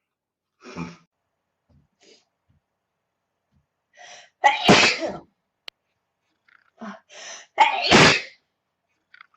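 A woman sneezing twice, allergy sneezes about four and a half and eight seconds in, each loud sneeze led in by a quick inhale. A shorter, quieter burst comes about a second in.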